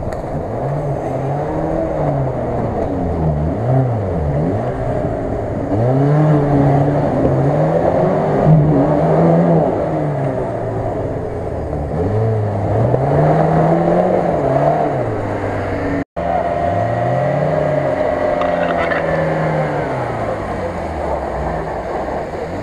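Off-road 4x4 engines revving up and down again and again under load as the vehicles churn over snow and ice. About two thirds of the way in, the sound cuts to another engine running steadier, its pitch slowly sinking.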